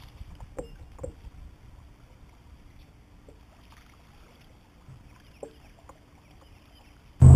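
Quiet water and hull sounds around a fishing kayak while a lure is worked, with a few faint, scattered ticks and knocks. Just before the end it cuts abruptly to the loud, steady low rumble of a vehicle cabin on the road.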